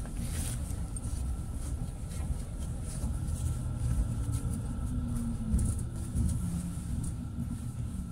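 Tram running along its route: a steady low rumble, with a faint whine that shifts in pitch around the middle.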